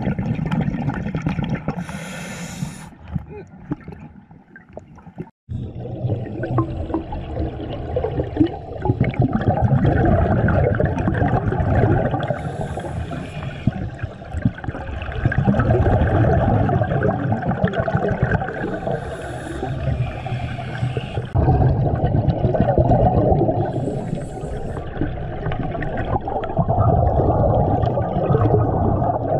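Scuba divers breathing through regulators underwater: a short hiss on each inhale followed by several seconds of bubbling exhaust as the exhaled air streams out, repeating about every six seconds. The sound breaks off briefly about five seconds in.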